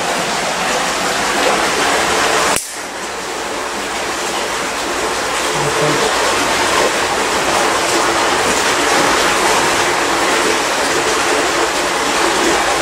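Water gushing from a pump hose into a flood test tank, a steady churning rush, with a sudden brief dropout in the sound about two and a half seconds in.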